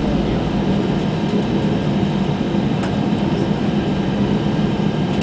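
Cabin noise inside an Airbus A320 on the ground: a steady engine hum and rolling rumble as it taxis, with a faint click about three seconds in.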